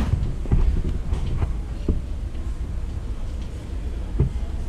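Low steady rumble with a few scattered soft knocks, the handling noise of a handheld phone camera being moved about.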